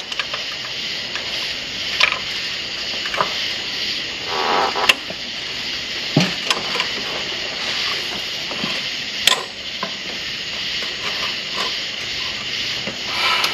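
Scattered clicks and knocks of hand tools and metal engine parts as a part is twisted and tightened under the hood, over a steady hiss.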